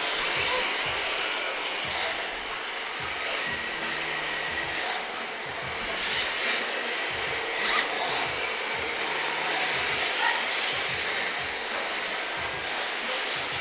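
Electric RC drift cars running: a steady hiss of tyres sliding over the track with a faint motor whine, and a few short sharp sounds about six, seven and ten seconds in.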